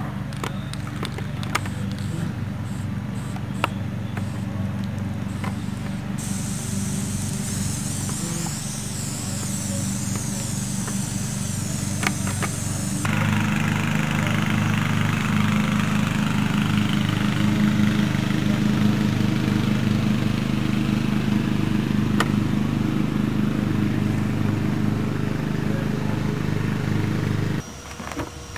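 A motor running steadily with a low, even drone. It grows louder and rougher about halfway through, then stops abruptly near the end.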